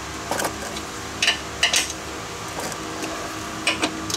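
Hand tools clinking and tapping against the steel mower deck and spindle: a handful of short, sharp metallic clicks spread irregularly, over a steady background hum.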